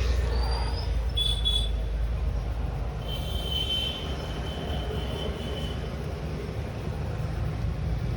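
Steady low rumble of road traffic, with brief high thin tones about one second in and again from about three seconds in.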